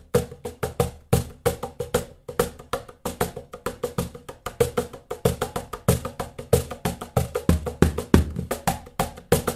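SP2 birch-ply cajon being played with its adjustable snare engaged. It gives a fast, steady run of crisp strokes, about five a second, with deeper bass strokes standing out here and there.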